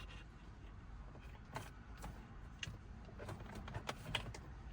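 Faint, scattered light clicks and rustles of a bundle of wiring and plastic being handled and pushed into a car dashboard.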